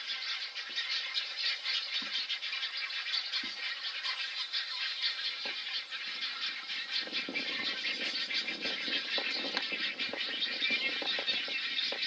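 Nesting colony of great egrets calling: a dense, continuous rattling chatter from the nests. From about seven seconds in, lower, harsher calls join it.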